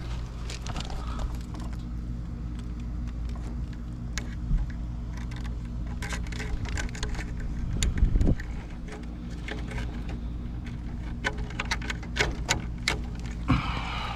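Hand work on pump wiring: irregular clicks, taps and light metallic rattles of wires and small parts being handled, over a steady low hum. The clicks come in a denser run about eleven to thirteen seconds in.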